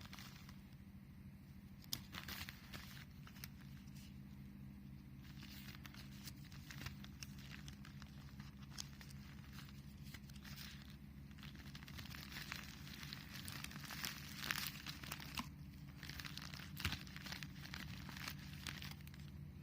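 Faint rustling and crinkling of the Apple EarPods packaging being handled and opened, with scattered small clicks and taps, busiest in the second half. A steady low hum runs underneath.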